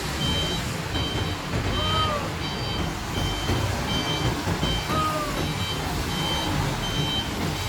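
A bus's reversing alarm beeping evenly, about once every three-quarters of a second, over the low rumble of its running engine. A brief high squeak sounds twice.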